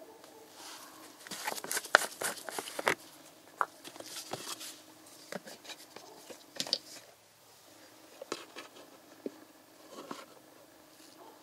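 Clicks and crackles of a plastic motor oil bottle being handled in gloved hands and its screw cap twisted off, densest in the first few seconds. Scattered lighter clicks follow as a plastic cup's hinged lid is handled.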